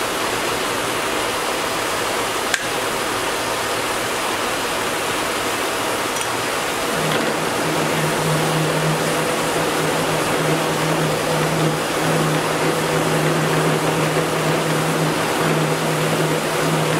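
Kearney & Trecker 2K horizontal milling machine running with its cutter turning over a steel bar, a steady mechanical noise. A single sharp click about two and a half seconds in, and a steady low hum joins about seven seconds in.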